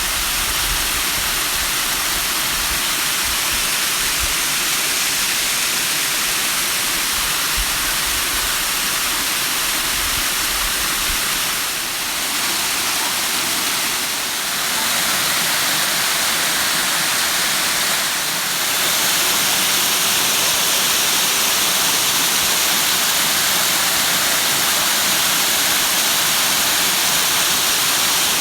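Waterfall: a steady rush of falling water, growing a little louder about two-thirds of the way in.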